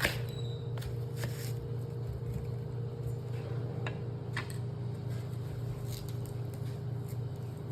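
A steady low mechanical hum, like an appliance or fan running, with a dozen or so light clicks and taps scattered through it.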